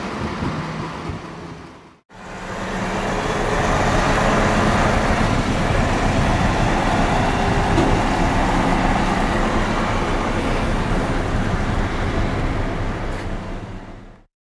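Heavy recovery truck's diesel engine running as it tows a truck tractor unit away. The sound fades out and cuts about two seconds in, comes back and holds steady, then fades out near the end.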